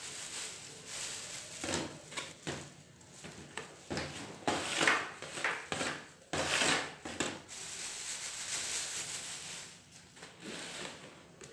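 Thin plastic bag rustling and crinkling in irregular bursts as it is handled and shaken out, loudest about halfway through.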